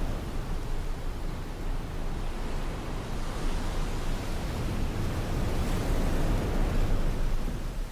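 Surf on a sandy beach: a continuous deep rumble of breaking waves. One wave swells in the middle and subsides near the end.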